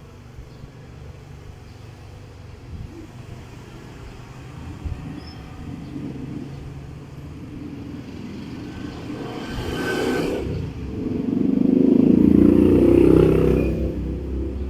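A passing road vehicle's engine rumble, growing steadily louder to a peak near the end, then easing off.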